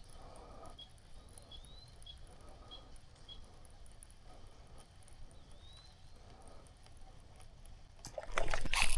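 Quiet riverside ambience with faint, short, high chirps, several rising slightly, repeating irregularly. About a second before the end a loud rush of noise sets in.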